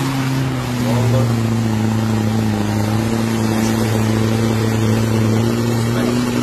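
Off-road 4x4's diesel engine held at high revs under full throttle as the vehicle churns through deep mud, belching black smoke. A steady, loud engine note that sags slightly in pitch a couple of seconds in and climbs again near the end.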